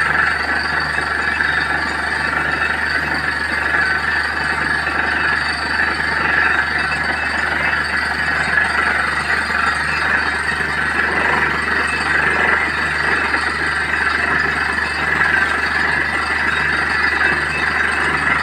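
Borewell drilling rig running steadily while a strong flow of water gushes out of the bore around the drill pipe: a loud, even hiss of spraying water and air over the low drone of the rig's engine, with a faint pulse about one and a half times a second.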